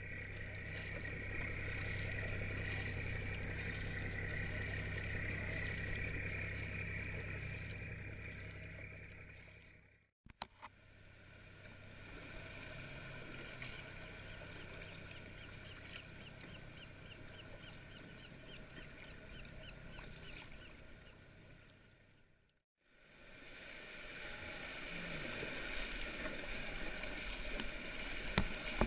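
Sea kayak out on the water: paddling and water noise with a steady low hum, in three stretches. The sound drops out briefly twice, about a third and two thirds of the way through, and is quieter in the middle stretch.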